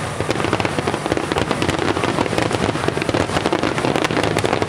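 A rapid, unbroken barrage of fireworks going off: many bangs and crackles overlapping too closely to count, typical of a grand fireworks finale.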